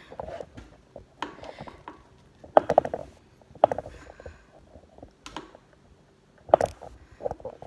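Irregular plastic clicks and knocks from a small phone vlogging tripod being adjusted and stood up, handled close to the phone's microphone; the sharpest knocks come about a third of the way in and near the end.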